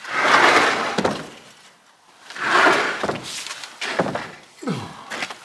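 Wooden pallets scraping against each other and on concrete as one is slid onto a stack, twice for about a second each, with hollow wooden knocks in between and toward the end.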